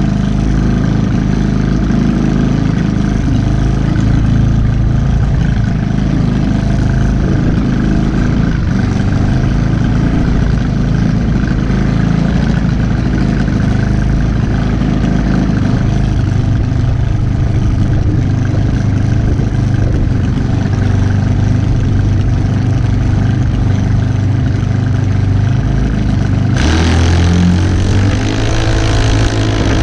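A junior dragster's single-cylinder engine running at a steady idle, heard up close from the car. About three seconds before the end the engine is revved up as the dragster starts to pull forward.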